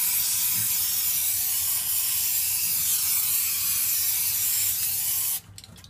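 Aerosol spray-paint can spraying in one long continuous hiss that cuts off suddenly near the end.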